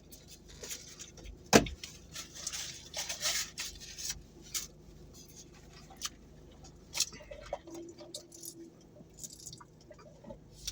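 Close-miked eating sounds: chewing and mouth noises with scattered sharp clicks, and one louder knock about a second and a half in.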